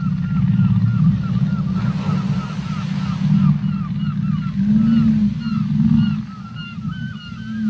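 Underwater whale recording: a deep rumble with low, short moans, overlaid by a rapid run of short rising chirps, about four a second. A hiss of water noise passes about two seconds in.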